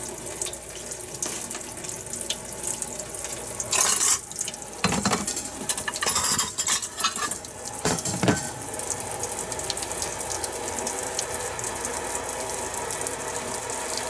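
Kitchen tap running hot water into a stainless-steel sink, left on until the water comes out hot. A few knocks and clatters come between about four and eight seconds in.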